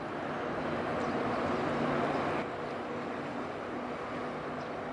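Steady low engine drone of a passing ship under a haze of wind and water noise; the noise eases slightly about two and a half seconds in.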